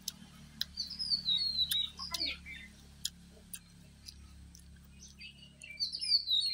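Birds singing, with whistled phrases that fall in pitch about a second in and again near the end, among scattered sharp clicks.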